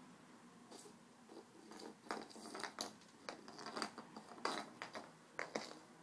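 Scattered light clicks, knocks and scratches as a kitten bats and wrestles a wooden whistle on a cord across a hardwood floor. The noises are sparse at first and come thick and fast over the middle few seconds.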